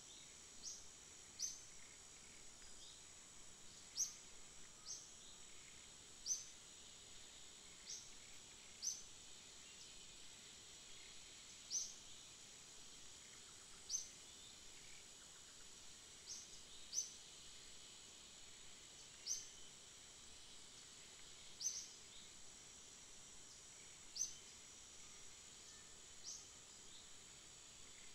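Faint outdoor ambience: a steady, high-pitched insect drone with short high chirps every second or two.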